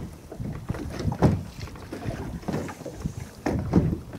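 Choppy water lapping and slapping irregularly against a small boat's hull, with wind buffeting the microphone.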